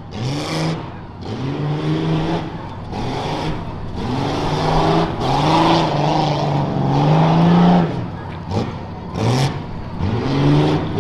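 A rough-truck SUV's engine revs hard over and over as it is driven through a rutted dirt course, its pitch climbing and dropping back about eight times. Short rushes of noise come about half a second in and again about nine seconds in.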